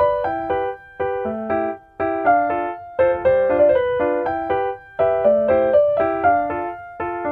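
Background music: a piano-like keyboard playing a light melody with chords in a steady rhythm.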